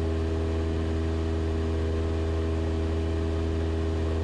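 Cessna 172 Skyhawk's engine and propeller droning steadily in level cruise, an even low hum with several steady tones above it.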